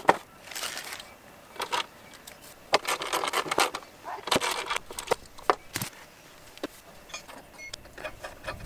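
Irregular clicks, knocks and scraping of lawnmower parts being handled: a plastic cover pressed onto the blade spindle under the deck, then a steel mower blade set against it.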